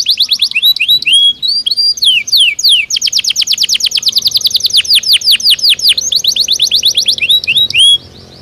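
Belgian canary singing: fast trills of rapid downward-sweeping notes, about ten a second, broken by a few slurred whistles, with the song stopping abruptly near the end.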